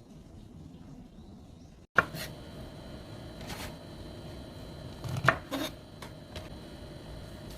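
A few separate sharp knocks of kitchen work, the loudest about two seconds in and the others near the middle, over a faint steady room hum.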